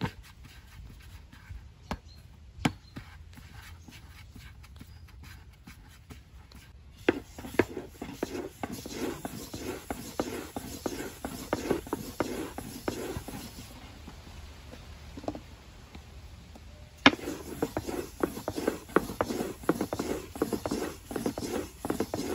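Long thin wooden rolling pin (oklava) rolling out bread dough on a floured round wooden board: a fast rhythm of rubbing knocks as the pin runs back and forth. It starts about seven seconds in, eases briefly, then starts again after a sharp knock. Before the rolling, a few light taps come from dough balls being shaped by hand on the board.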